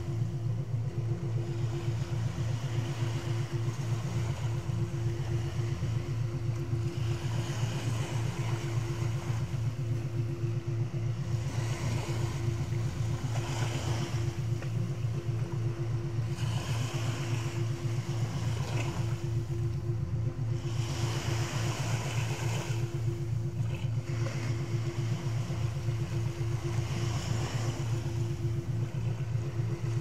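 Small sea waves washing onto the shore, their hiss swelling and fading every few seconds. Underneath runs a steady low droning meditation tone.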